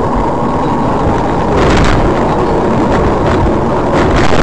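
Steady road and engine noise heard inside a moving car's cabin, with brief knocks about a second and a half in and again near the end.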